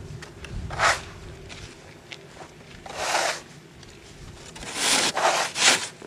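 Snow shovels scraping across packed snow and pavement: four short scrapes, the last two close together near the end.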